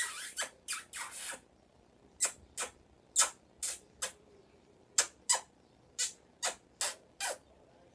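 A quick run of about fifteen short kissing smacks, roughly two a second at uneven spacing, as a woman and an African grey parrot kiss lips to beak.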